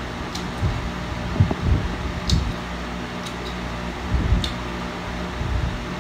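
Electric stand fan running with a steady hum. Over it come a few light clicks and soft low thumps from eating and handling food at the table.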